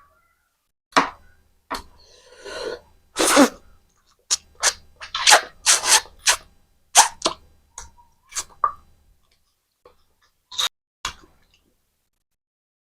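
Close-miked eating sounds: wet mouth clicks and smacks while chewing spicy mutton curry with rice, mixed with a few short, sharp breathy noises. The smacking is dense at first and thins out to a few loud clicks near the end.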